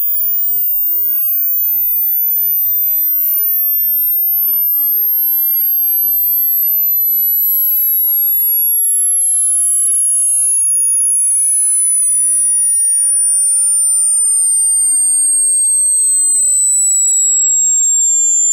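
A pure sine test tone for a hearing test, sweeping slowly and steadily downward in pitch from near the upper limit of human hearing to a high whistle; the listener is meant to note the frequency at which it first becomes audible.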